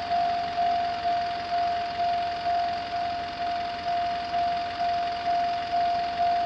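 Railway level crossing warning bell ringing, a single clear ding repeated about twice a second, each strike sharp and then fading.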